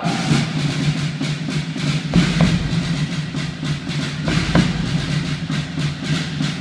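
Live military band music: drums beating steadily over a held low chord.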